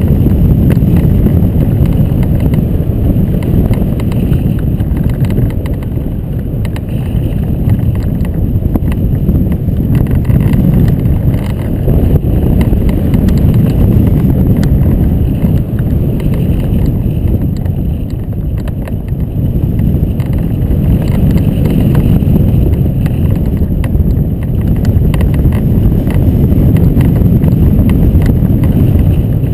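Wind buffeting a hang glider's keel-mounted camera in flight: a loud, low rumble that swells and eases every few seconds.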